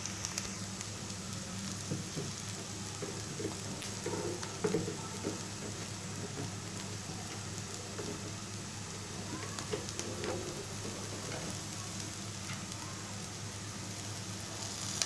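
Chopped green chilies and garlic frying in mustard oil in a non-stick pan: a steady, gentle sizzle, with a few faint scrapes and clicks of a spatula.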